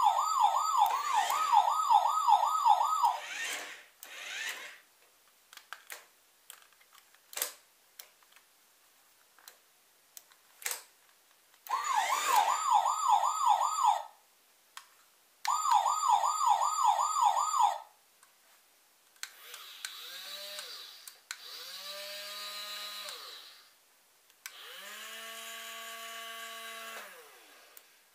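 Fast Lane 21-inch remote-control toy fire truck's electronic siren wailing in a fast repeating sweep, in three bursts with a few plastic clicks between them. From about two-thirds of the way in, a small electric motor in the truck whirs in three spells, each spinning up and then winding down.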